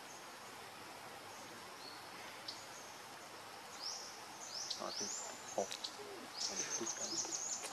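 Birds chirping: short high calls that sweep upward in pitch, sparse at first and coming in quick runs from about four seconds in, over a steady hiss of forest background. A few faint low knocks fall around the middle.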